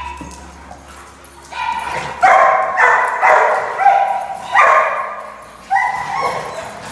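Dog barking: a run of about six high-pitched barks, a little under a second apart, starting about two seconds in.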